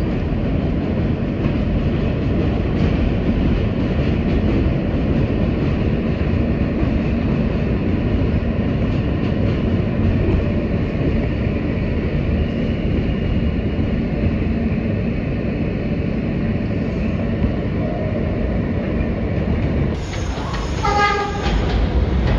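Ride inside an R160 subway car on an elevated line: a steady low rumble of wheels on rail and running gear. Near the end this gives way to an R160 train approaching on a station platform, its electric propulsion whining in a rising, stepped tone.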